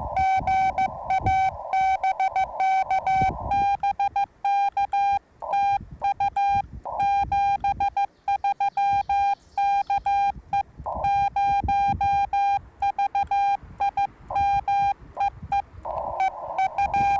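Morse code from a Yaesu FT-891 transceiver: a single steady tone keyed on and off in dots and dashes. At the start and near the end a received station comes through with band hiss around it; in between the radio's clean sidetone keys out a fast exchange.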